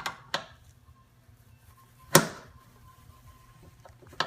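Wrench work on the snowblower's metal parts: a few light metallic clicks, and one sharp clank with a short ring about two seconds in, while a bolt is being tightened.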